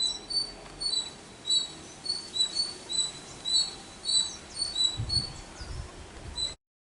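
Tailorbird calling: a steady run of short, sharp, high-pitched notes, about two to three a second, alternating between a slightly higher and a slightly lower pitch. A few low thumps of wind or handling come about five seconds in, and the sound cuts off suddenly near the end.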